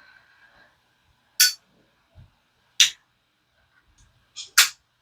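Sharp clicks of a lighter being struck to light a pipe, four in all, the last two close together near the end.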